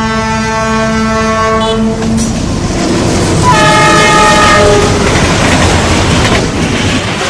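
Diesel locomotive horn sounding one long steady blast that stops about two seconds in, followed by train rumble and wheel clatter. A second, louder horn blast sounds about three and a half seconds in and lasts just over a second.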